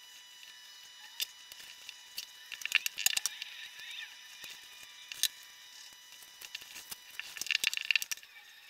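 Light clicks and rustles of a small metal star-shaped cookie cutter pressed into soft cold-porcelain dough and handled on crinkly baking paper. There are single clicks, with two busier clusters, one about three seconds in and one near the end.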